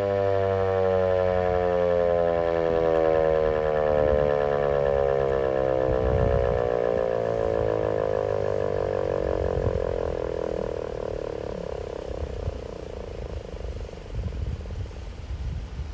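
ASC T-128 outdoor warning siren winding down at the end of its alert signal: its tone falls steadily in pitch and fades out over about twelve seconds.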